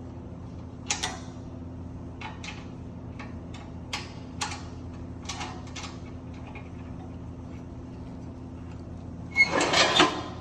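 Scattered light clicks and knocks, with a louder cluster of rattling knocks near the end, over a steady low hum.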